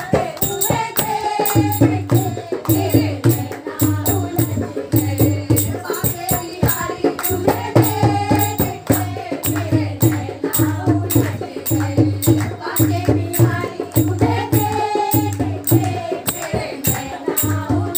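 Hindi devotional Krishna bhajan: a voice singing a melody over a steady, rhythmic percussion beat.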